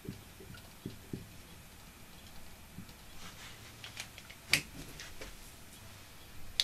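Light clicks and taps of dry-erase markers being handled at a whiteboard: a few soft knocks at first, then a run of short clicks with one sharper click about four and a half seconds in.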